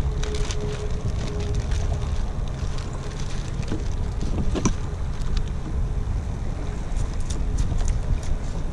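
Wind buffeting the microphone in a steady low rumble, with a few light clicks and taps scattered through it.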